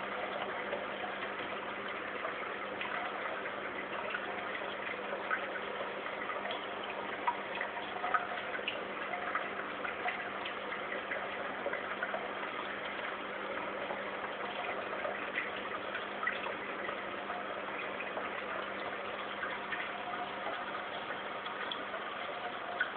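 Aquarium water trickling and bubbling steadily, with scattered small ticks and pops over a low steady hum.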